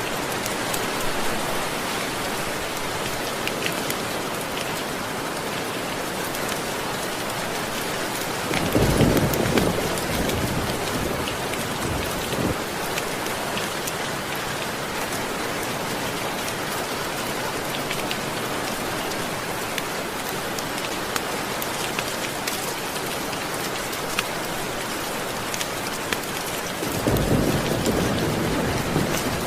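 Steady rain falling, with two low rolls of thunder, one about nine seconds in and one near the end.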